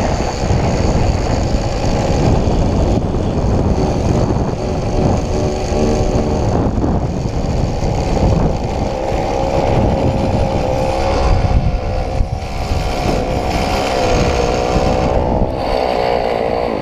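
Homelite 33cc two-stroke chainsaw engine driving a bicycle through a friction roller on the tyre, running flat out under load, its pitch wavering a little, with wind rushing over the microphone.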